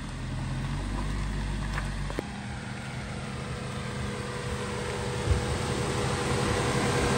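Honda Element's 2.4-litre four-cylinder engine idling just after a jump start, heard up close at the front of the car: a steady hum and rushing noise that grows louder toward the end.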